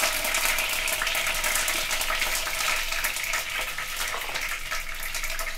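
Fresh curry leaves frying in hot oil: a dense, steady sizzle of fine crackles that eases slightly toward the end. The leaves are being fried first to flavour the oil.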